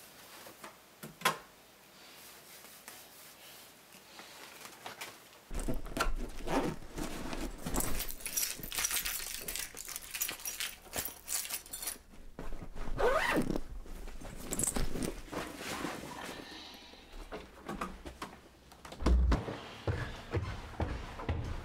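Getting-dressed handling sounds: clothing rustling, a zipper and keys jangling in a series of short scratchy bursts, with a sharp click about a second in. Near the end come a few heavy thumps of footsteps on stairs.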